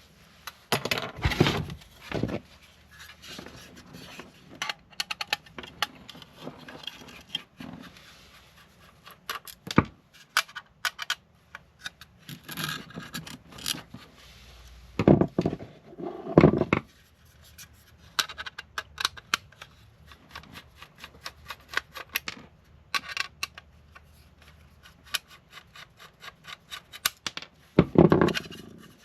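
Hands working on a desktop computer and a removed hard drive: rubbing, scraping and many small clicks of metal and plastic parts, with a few louder knocks about a second in, around the middle and near the end.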